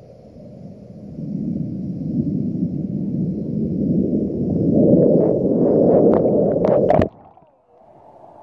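Muffled, low rushing of lake water around a camera's microphone held underwater. It grows louder over several seconds, has a few sharp clicks near the end, and cuts off suddenly about seven seconds in as the microphone comes out of the water.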